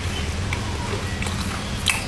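Chewing a mouthful of crispy Jollibee fried chicken, with a faint crunch about half a second in and a sharper crunch near the end, over a steady low background hum.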